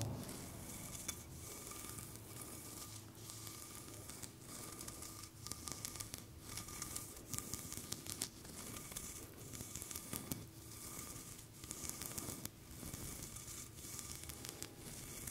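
Close-miked ASMR handling sounds: crinkly, scratchy rustling broken by many irregular light clicks and taps.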